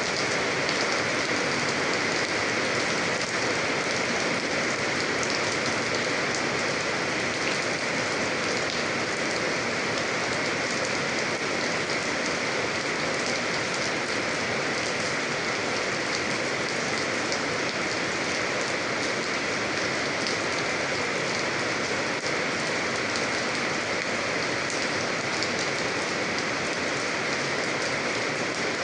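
Steady rain falling on a surface, an even hiss with fine patter of individual drops.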